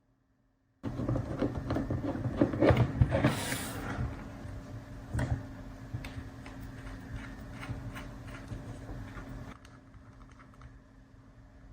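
Hands handling small hard drone parts: irregular clicks and knocks over a faint steady hum, starting suddenly about a second in. They are busiest in the first few seconds, then sparser and quieter.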